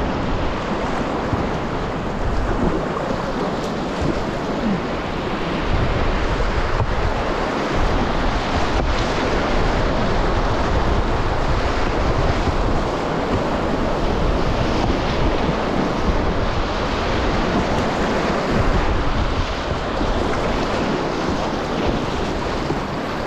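Loud, steady rush of river whitewater, with gusts of wind buffeting the microphone.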